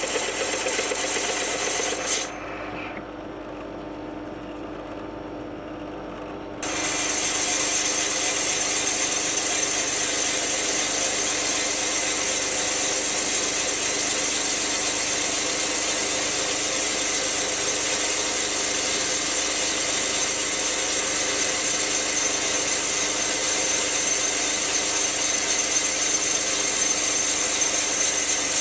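Myford ML7R lathe turning the rough outer edge of a soft gunmetal flywheel, the tool cutting steadily through the rough surface. About two seconds in, the cutting noise drops away for about four seconds, leaving a quieter running sound, then it comes back and carries on.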